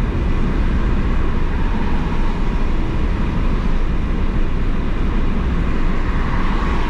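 Car being driven, heard from inside the cabin: a steady low rumble of engine and tyres on the road.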